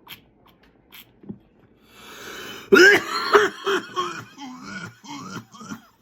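A person coughs after taking in smoke: a breathy hiss of breath, then from about three seconds in a loud run of about ten coughs, one after another. The smoke is irritating the throat.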